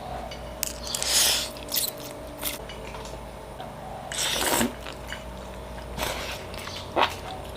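Breakfast-making kitchen sounds: scattered clicks and knocks, and two short noisy rushes about a second in and about four seconds in, over a steady faint hum.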